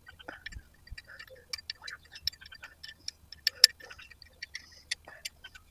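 Irregular light metallic clicks and ticks of an old flaring tool being tightened down on a tube end to flare it, with a couple of sharper clicks about three and a half seconds in.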